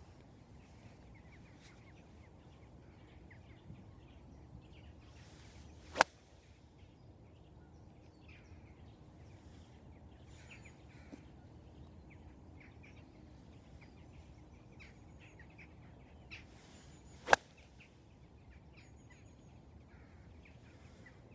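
Two sharp 7-iron strikes on golf balls, each a single short crack, about eleven seconds apart.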